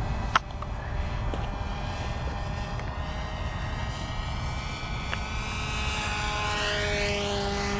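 Propeller and motor of a scratch-built model aerobatic airplane in flight, a steady droning whine that rises in pitch over the last couple of seconds. A sharp click sounds about half a second in.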